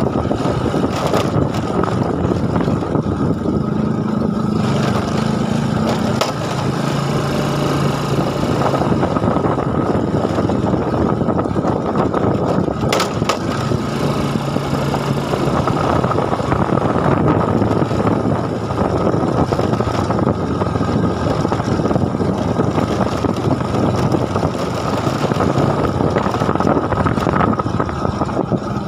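A small engine running continuously, its pitch stepping up and down every few seconds.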